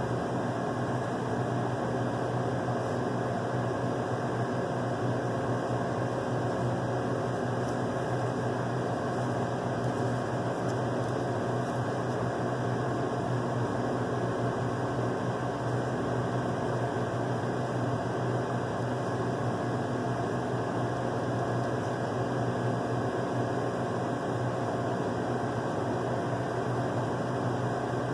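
Steady, unchanging machine hum with an even hiss over it.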